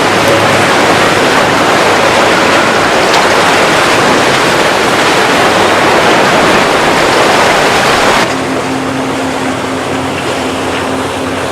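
Motorboat running at speed, with a loud rushing of wind and water over everything. About eight seconds in the rush drops away and a steady engine tone comes through.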